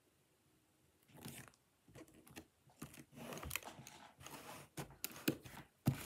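Plastic Lego bricks being handled and pressed together close to the microphone: irregular clicks and crunchy rattles that begin about a second in and grow busier.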